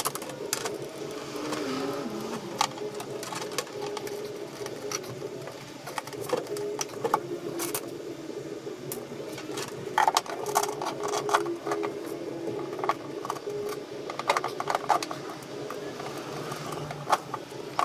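Wires and plastic cable ties being handled: scattered clicks, rattles and short runs of rapid clicking, over a steady hum.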